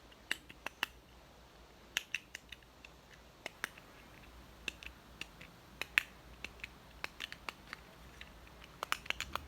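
Plastic buttons on a handheld remote-style fidget toy being pressed, sharp clicks coming irregularly, then a quick run of clicks near the end.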